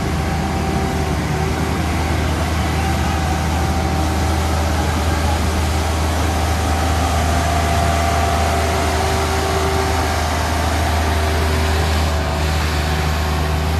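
Heavy-haul rig's diesel engine running with a steady low drone.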